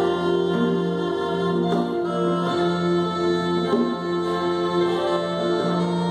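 Small live band playing an instrumental passage of a Christmas song: a melody of long held notes over sustained keyboard chords, with acoustic guitars and hand drums.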